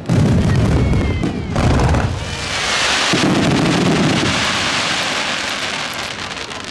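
Aerial fireworks: a deep boom at the start, a whistle about a second in, and a second boom about two seconds in, followed by several seconds of crackling from the bursting shells that slowly fades.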